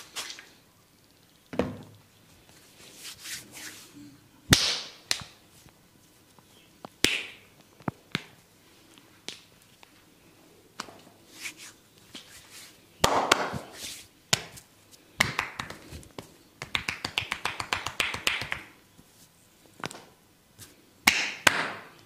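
Hands massaging a bare arm and shoulder: skin rubbing and swishing, several sharp single clicks, and later a fast run of taps, about eight a second for a couple of seconds.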